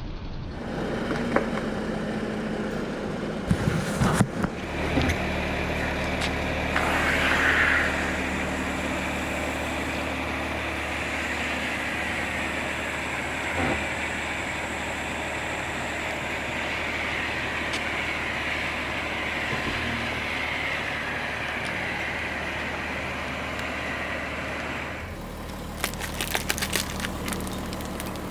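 A car running steadily, with sharp crackling crunches about four seconds in and again in a cluster near the end as things are crushed under its tyres.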